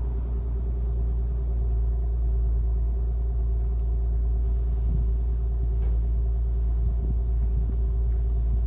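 Infiniti G37's 3.7-litre V6 idling steadily in its warm-up after a cold start.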